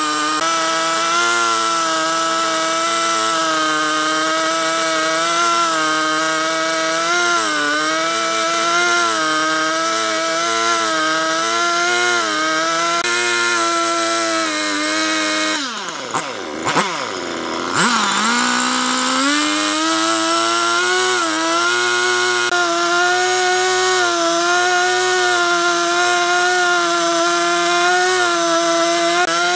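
Two-stroke chainsaw cutting into a log at steady high revs. About halfway through, the throttle is let off and the engine slows almost to idle for a couple of seconds, then revs back up and keeps cutting.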